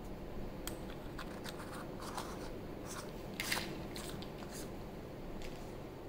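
Light clicks and scrapes of small aluminium flashlight parts being handled by hand, a few separate taps with the sharpest a little past three and a half seconds in.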